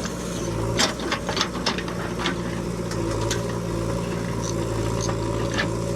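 Heavy diesel engine running steadily, with a run of sharp knocks and clatters, most of them in the first two and a half seconds.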